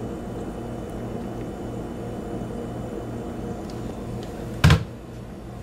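A low steady hum with a faint regular pulsing, then one short, sharp thump near the end as a foot steps onto a black glass digital bathroom scale.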